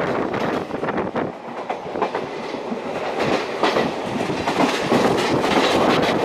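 A moving steam-hauled passenger train heard through an open coach window: wheels clattering over the rails amid a rush of air, growing a little louder toward the end.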